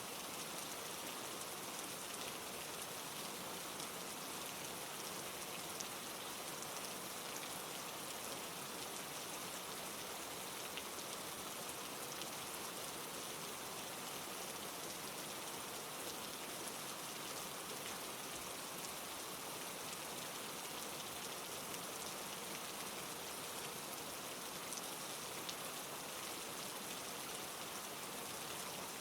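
Steady rain falling, with scattered drops pattering on a surface.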